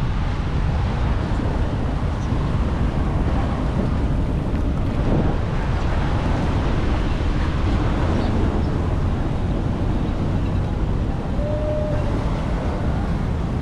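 Floodwater rushing steadily, mixed with wind noise on the microphone.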